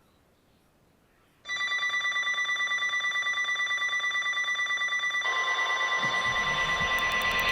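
NOAA weather radio receiver's alert alarm going off: a loud, rapidly pulsing electronic beep that starts suddenly about a second and a half in, signalling an incoming weather warning.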